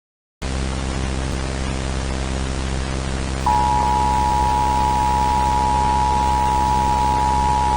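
A hiss of static with a low hum cuts in suddenly about half a second in. About three seconds later the EAS attention signal, a steady two-tone beep, starts over the static and holds: the alarm that opens an emergency broadcast.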